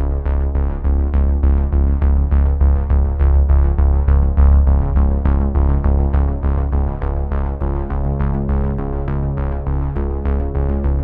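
Background music: a steady pulse of notes, about four a second, over a sustained deep bass.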